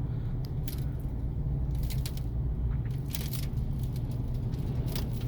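Steady low road rumble inside a moving car, with about half a dozen brief, sharp, hissing ticks as wind-blown grit and debris strike the car body.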